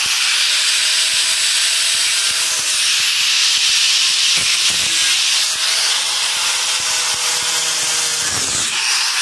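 Electric angle grinder running at full speed, its spinning disc cutting through the packing tape and cardboard of a box: a loud, steady whir and hiss.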